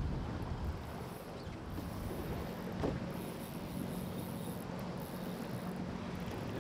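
Steady low hum of an idling engine over a noisy outdoor background, with one sharp click about three seconds in.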